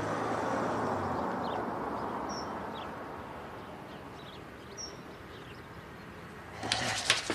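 Range Rover Evoque SUV driving off, its engine and tyre noise fading over the first two or three seconds, with a couple of short bird chirps. A few sharp clicks near the end.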